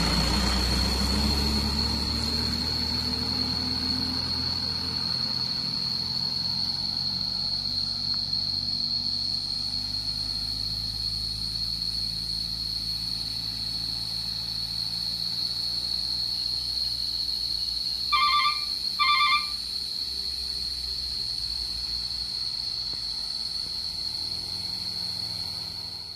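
Diesel engine of a Mitsubishi HDL136PS self-loader truck running as the truck drives away, its rumble slowly fading. A steady high whine runs throughout. About eighteen seconds in come two short high beeps, the loudest sounds.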